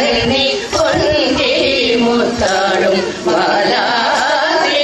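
Women's voices singing a Carnatic-style Tamil devotional bhajan, a melodic chant to Murugan.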